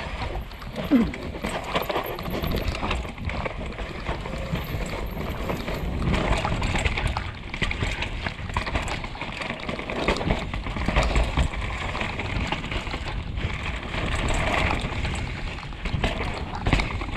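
Mountain bike riding fast over rocky dirt trail: knobby tyres rolling over dirt and stones, and the bike rattling with a constant run of small knocks and clatters.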